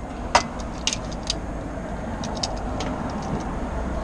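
A few light clicks and knocks of an adjustable triangular oil filter wrench being set onto the engine's oil filter. The sharpest comes about a third of a second in, with lighter ones around a second and again two to three seconds in, over a steady low rumble.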